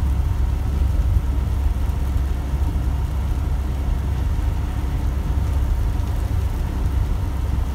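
Steady low drone of a cargo truck's engine and tyres on a wet road, heard inside the cab.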